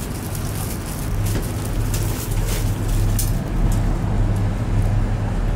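Ride noise inside a moving cable car gondola: a steady low hum and rushing noise that grows louder about a second in, with a few brief rustling clicks.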